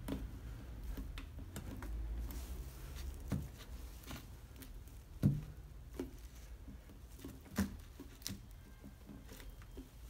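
Glass jars with metal screw lids being handled while a plastic tube is pushed through holes in the lids: scattered light clicks and rubbing, with two louder knocks about five and seven and a half seconds in.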